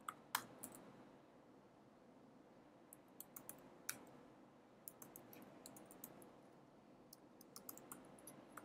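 Faint keystrokes on a computer keyboard as a terminal command is typed: a few clicks at the start, a pause, then irregular runs of keypresses through the rest.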